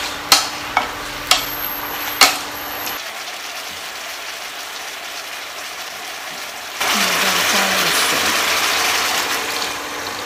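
Wooden spatula knocking sharply against a stone-coated wok four times while chicken sizzles in rice wine. About seven seconds in, water poured into the hot pan sets off a loud, even hiss lasting about three seconds.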